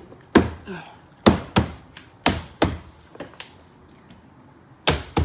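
Interior door trim panel being knocked back onto the car door by hand: about eight sharp thumps, several in quick pairs, with a pause of over a second before the last two near the end.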